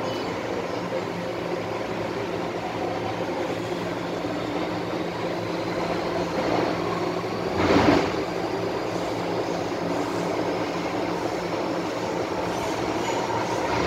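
MTR M-Train's traction equipment whining under way, several steady tones with a faint rising tone over the wheel and running noise, with a brief louder surge of noise about eight seconds in. The whine is the strong 'ghost howl' (鬼叫) this train set is known for.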